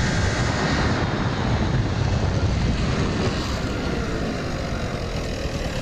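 Motorcycle running on the move, with steady engine and road noise. Over the last few seconds the engine note slowly falls as it slows down.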